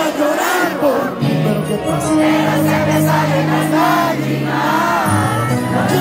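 Live vallenato music from an accordion-led band, with a steady bass line under a wavering melody and crowd voices mixed in.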